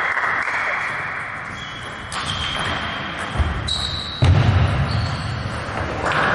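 Sports-hall background noise with two dull thuds a little under a second apart, about halfway through, the second louder.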